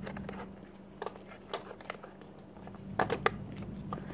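Hands working a new ignition coil's rubber spark-plug boot and wires on a scooter engine: scattered small clicks and rubbing, sharpest about a second in and twice around three seconds in, over a steady low hum.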